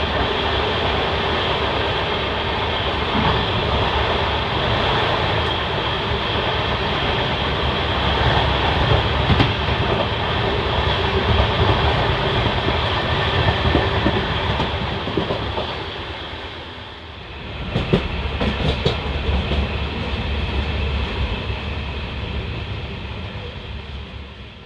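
Passenger train running on the track, heard from aboard: a steady rumble and clatter of wheels on rails. About 17 seconds in the noise drops briefly, then a quick run of sharp clicks follows as the wheels pass over joints or points.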